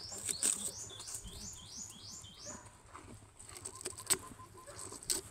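A bird calling a quick run of about six high notes over the first two and a half seconds, with scattered clicks and rustles, the sharpest about four seconds in, as a calf chews a banana peel and shifts over dry leaves.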